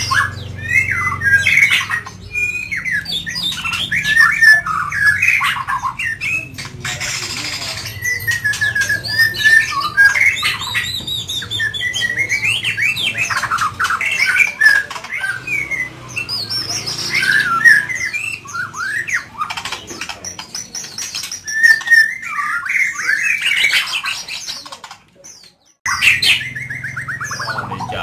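A caged white-rumped shama (murai medan) singing vigorously and without pause: a rich, varied stream of whistled phrases, slurred glides, trills and sharp notes. The song breaks off into a moment of silence near the end, then resumes.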